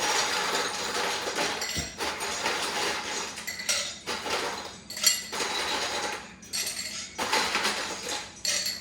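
Kitchen utensils and glassware clinking and scraping, with several sharp knocks, while citrus is juiced by hand for a cocktail.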